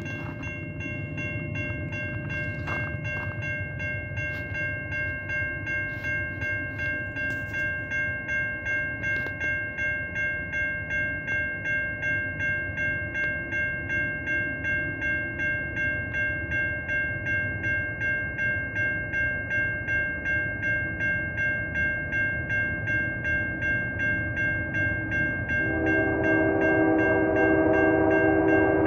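Level crossing warning bell ringing steadily at about two strokes a second over a low rumble from the approaching freight train. About 26 seconds in, the lead locomotive, a GE C44-9W, sounds its horn in one long chord that runs nearly to the end and is the loudest sound here.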